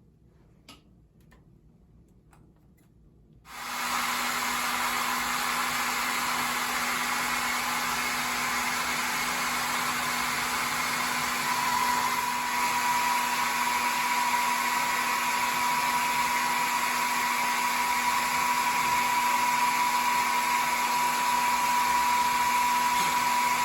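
A few faint clicks, then a hair dryer switches on about three and a half seconds in and runs steadily, a loud rush of air with a steady whine that grows a little stronger about halfway through.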